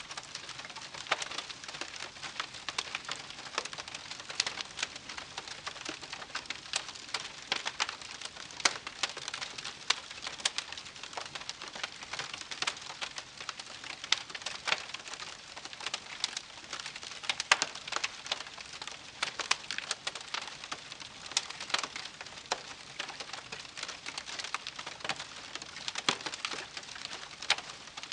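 Wood campfire crackling: many irregular pops and snaps over a soft hiss.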